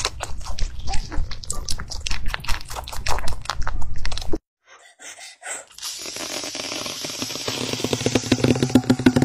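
A rabbit chewing a strawberry close to the microphone: rapid, crisp crunching clicks for about four seconds. After a short silence comes a steadier hiss with fast ticking, from an unclear source.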